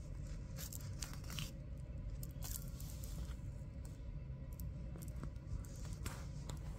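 Hand sewing: thread drawn through cloth with a needle in a few short pulls, with rustling of the fabric, over a steady low background hum.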